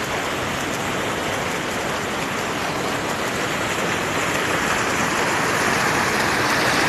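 Steady rush of flowing water at a reservoir dam, growing a little louder about four seconds in.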